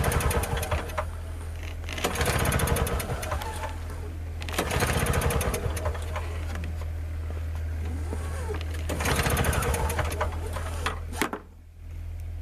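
MTD Yard Machine snowblower's small single-cylinder engine running just after a cold start on prime and choke. A steady low hum rises into four louder, rattling swells and drops away briefly about eleven seconds in before picking up again.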